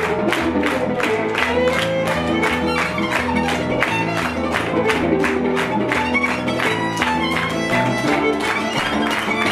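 Violin and piano duo playing a lively piece on a fast, steady beat of about four strokes a second.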